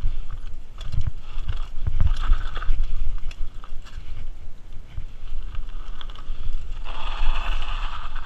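Mountain bike rattling and jolting over a rocky dirt trail, with frequent knocks from the bumps over a steady low rumble. A denser rasping hiss comes in about seven seconds in.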